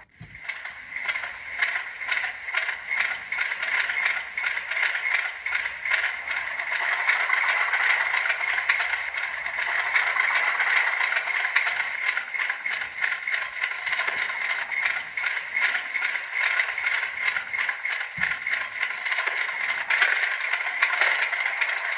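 Hornby TTS sound decoder in an OO gauge Class 31 model playing the diesel engine's cold-start sound through the model's small speaker. The engine starts and runs with a fast, even clatter, thin and with little bass, growing louder over the first several seconds and then holding steady.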